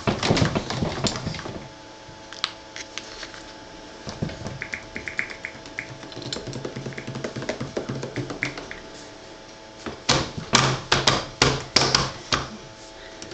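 Quick clusters of taps and knocks, thickest near the start and again a few seconds before the end, over faint steady music.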